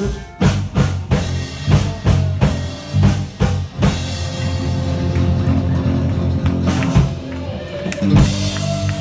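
Live band playing an instrumental break with no singing: a run of hard drum-kit hits over the first four seconds or so, then electric guitar and bass held over steady drums, with another accent hit near the end.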